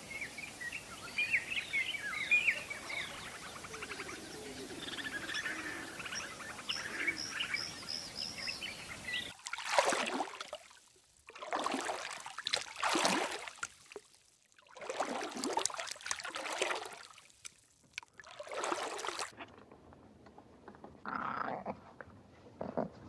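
Small birds chirping over outdoor background. About nine seconds in, after a sudden change of background, a series of loud, harsh, noisy animal calls, each about a second long, runs for about ten seconds, then it goes quieter with a few faint calls.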